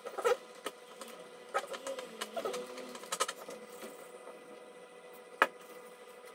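Scattered sharp clicks and light taps of small robot parts being handled, the loudest a single click about five seconds in, over a faint steady whine.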